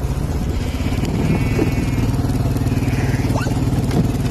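Quad bike engine running steadily.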